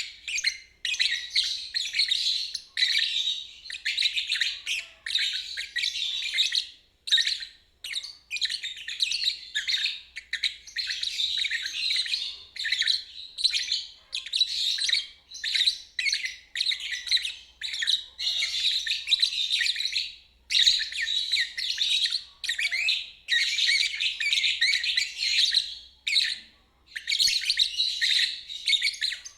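Lovebird singing its chattering 'ngeriwik' song: rapid, high-pitched twittering in phrases of a second or two, broken by brief pauses.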